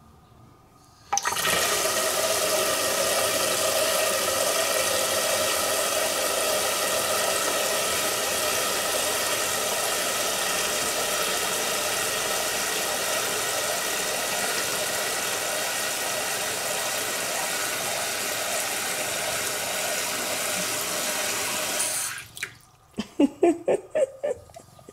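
Kitchen mixer tap running in a steady stream into a stainless sink, starting about a second in and cutting off abruptly near the end as the cat pushes the lever closed, followed by a few short sharp plinks.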